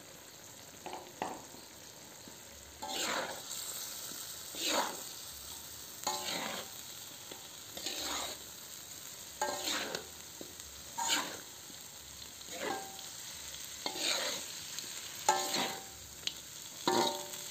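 Metal spatula stirring and scraping through salted fish, tomatoes and green chilies in a wok, in short strokes roughly every second or so that start about three seconds in. Under the strokes the pan sizzles steadily as the sauce cooks down.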